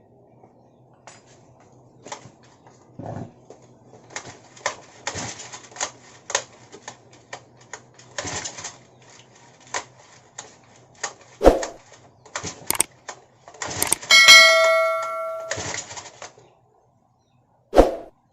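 Clicks, knocks and clatter of hands working on a Honda GX35 brush cutter, with a metallic ringing lasting about two seconds about three-quarters through and a single sharp knock near the end. The engine is not running.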